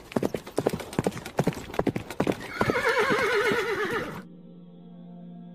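Horse hooves beating quickly in an irregular clatter, with a horse's whinny with a trembling pitch from about two and a half seconds in. Both stop suddenly near the end, leaving a faint steady low hum.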